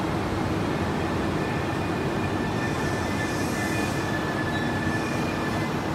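A JR Kyushu 787-series electric train running slowly along the platform as it arrives, with a steady rumble of wheels and running gear. A faint, thin high squeal joins about halfway through as the train slows.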